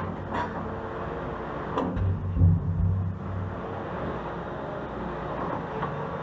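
Construction machinery engine running steadily, with a heavier low rumble for about a second, starting about two seconds in, and a few sharp clicks.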